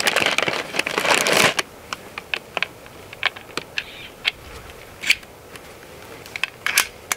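Handling noise from a .50 caliber PCP air rifle being reloaded between shots: rustling for about the first second and a half, then scattered sharp clicks and knocks from the rifle's action. The two loudest clicks come about five and seven seconds in.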